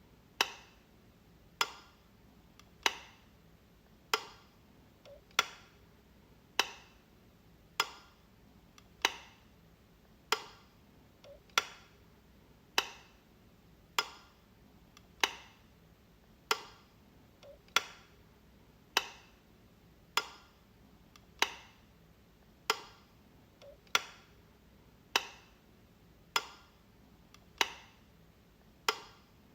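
A light switch being flicked again and again, one sharp click a little less than once a second, evenly spaced.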